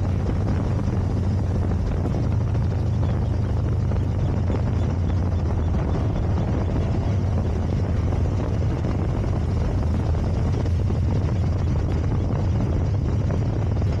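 2007 Harley-Davidson FXDC Dyna Super Glide Custom's Twin Cam 96 V-twin running steadily while the bike is ridden, a low unbroken rumble with wind rush over it.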